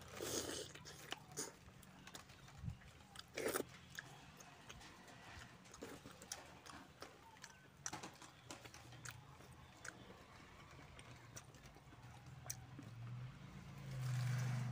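Close-up mouth sounds of a man eating chicken curry and rice by hand: biting and chewing the chicken with wet, sharp clicks and smacks at irregular intervals, and a louder low hum near the end.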